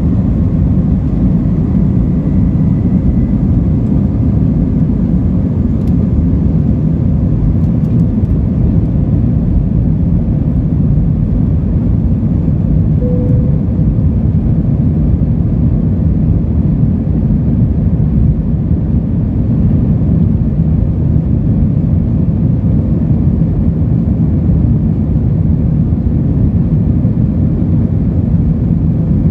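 Airbus A321's jet engines at takeoff power, a steady loud low rumble heard from inside the cabin during the takeoff run and climb-out.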